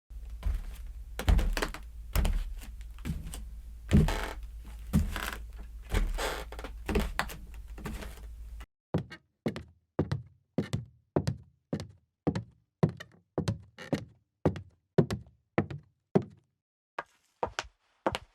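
Footsteps on a wooden floor. At first there are slow, heavy steps about one a second over a low steady hum. About eight and a half seconds in, a different take starts with quicker, crisper steps about two a second, which pause briefly near the end.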